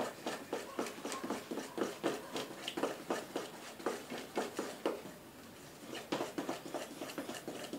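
Spatula stirring thick cake batter in a stainless steel bowl by hand, in quick repeated strokes of about three to four a second, with a short pause about five seconds in before the stirring resumes.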